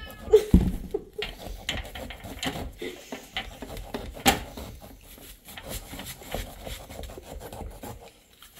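A heavy thump about half a second in as a large pumpkin is set down on a stone countertop, then irregular scraping and rasping as the pumpkin is worked with a knife and its stringy pulp is pulled out. A sharp knock comes a little past four seconds.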